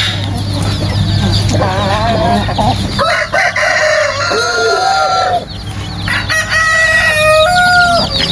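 Roosters crowing, with two long drawn-out crows in the second half, and hens clucking among them.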